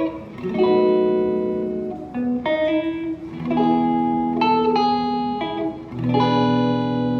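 Ibanez RG421HPFM electric guitar played on its clean tone with a little reverb. It plays ringing chords and picked notes, moving to a new chord every second or two.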